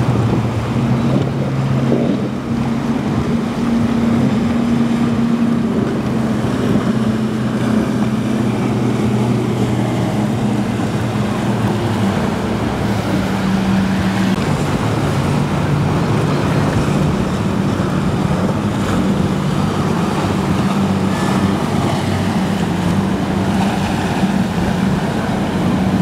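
Motorboat engines running with a steady drone that shifts slightly in pitch about halfway through, over wind noise on the microphone and rushing water.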